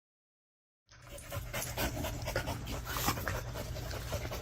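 A dog panting, starting about a second in after silence, with a steady low hum underneath.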